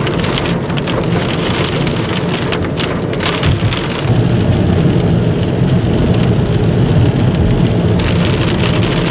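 Rain hitting a moving car's windscreen and body, over steady road and engine noise; the noise grows louder about four seconds in.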